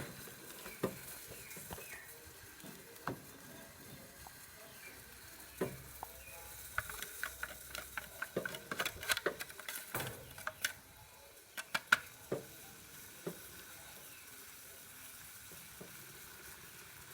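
A potassium nitrate and sugar mixture being stirred as it cooks in a pot: a utensil clicking and scraping against the pot in scattered sharp ticks, thickest in the middle, over a faint steady hiss.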